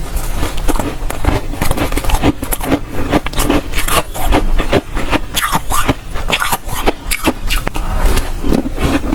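Close-up crunching of dry, soft freezer frost being bitten and chewed, many quick crunches in a row.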